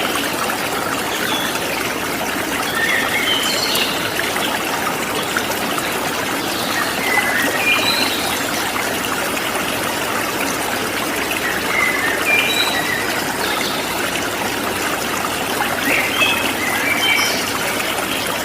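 Water flowing steadily, like a small stream trickling over stones, with short bright gurgles every second or two.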